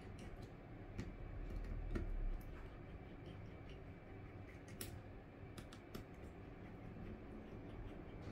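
Small scattered clicks and taps of fingers handling the plastic parts of an opened Samsung Galaxy A20e smartphone, with a low rubbing rumble between about one and two and a half seconds in.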